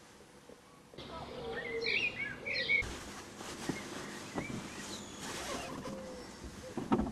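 Birds chirping briefly, a quick run of short chirps, followed by faint rustling and a few soft knocks, with two sharper knocks near the end.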